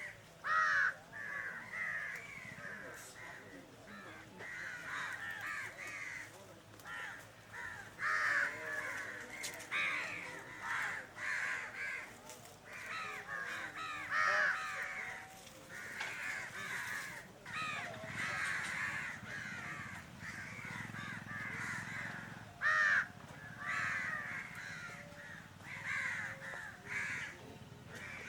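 A flock of birds calling over and over, many harsh calls overlapping without a break, with a few louder single calls standing out.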